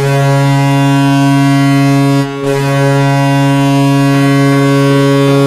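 Toronto Maple Leafs arena goal horn blowing, the signal of a goal scored: a low, loud, steady horn blast, a brief break about two seconds in, then a second long blast.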